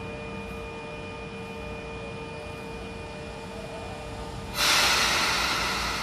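Sotetsu 9000 series electric train standing at the platform with a steady electrical hum of several tones. About four and a half seconds in, a sudden loud hiss of released compressed air starts and slowly fades.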